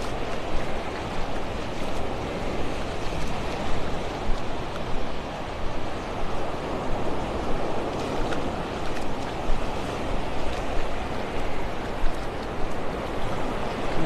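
Small waves washing up on a sandy beach: a steady rushing wash with small surges.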